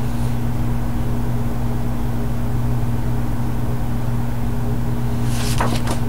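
A steady low machine hum throughout, with a brief crackling rustle of a comic book's glossy page being turned about five seconds in.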